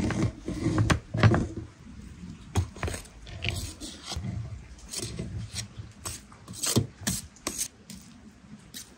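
Metal spoon scraping and clicking against a perforated steel colander as cooked rice is tipped out of it into a metal pot, with a couple of heavier knocks near the start and just over a second in.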